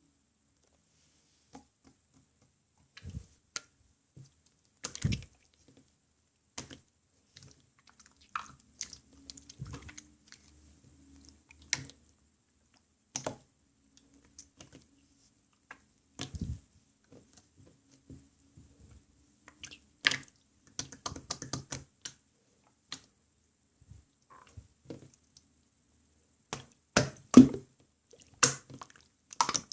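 Clear slime being pressed and worked by hand, giving irregular sticky clicks and small wet pops with short quiet gaps between them.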